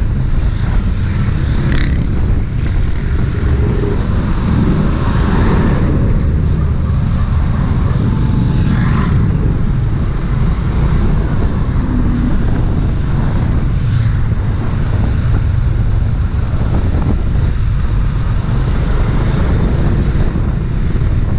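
Yamaha Aerox 155 scooter's single-cylinder engine running at low speed in slow traffic, under steady wind and road noise on the microphone.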